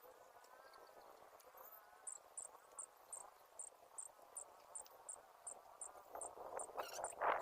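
Cricket chirping, short high chirps repeating evenly about two to three times a second. Near the end a louder rustling noise swells in.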